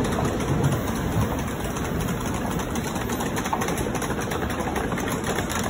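N700-series Shinkansen bullet train pulling out of the station, its last cars sliding past the platform with a steady rush of wheel and air noise.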